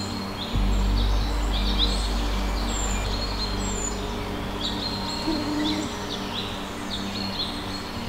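Forest birds calling and singing, short high notes repeated in quick groups with thin falling whistles above them, over a steady low rumble.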